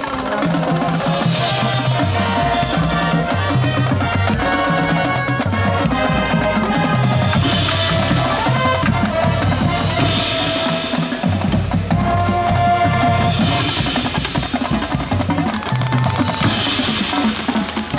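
High school marching band playing its field show: brass chords over marching drums, with bass and snare drums driving the beat and four loud crashes in the second half.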